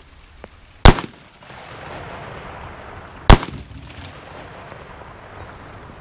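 Marlin Model 336 .30-30 lever-action rifle fired twice, about two and a half seconds apart, at a concrete block. Each shot is a sharp report with a short echo.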